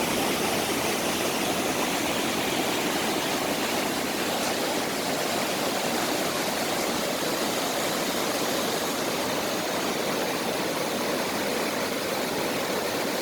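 Mountain stream rushing over rocks, a steady unbroken wash of water.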